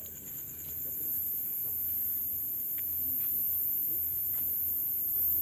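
Night insects, crickets among them, calling steadily in a high, pulsing trill.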